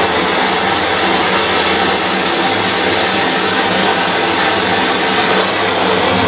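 Gas torch flame hissing steadily as it heats a copper pipe joint on a brass ball valve for soldering.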